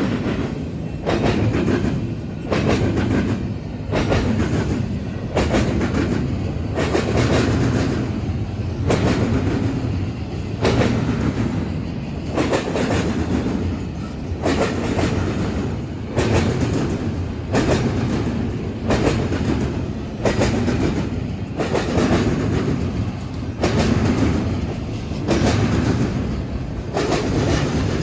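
BNSF freight train's cars rolling over a railroad diamond crossing: the wheels bang across the crossing frogs in a steady clickety-clack, a group of clanks about every second and a half, over the continuous rumble of the passing cars.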